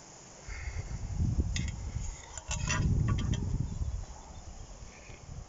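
Handling noise from a handheld camera being moved through long grass and brambles: low rumbling and brushing, with a cluster of sharp dry crackles in the middle.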